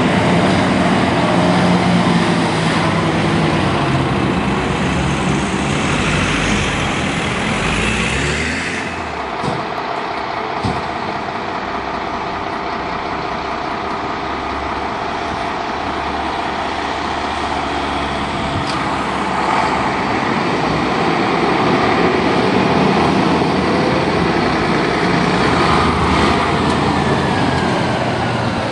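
Diesel fire-truck engines pulling away and driving past: first a Mercedes-Benz turntable ladder truck accelerating, with the engine rising in pitch, then, after an abrupt change about nine seconds in, a Scania tanker-pumper running steadily as it leaves the station.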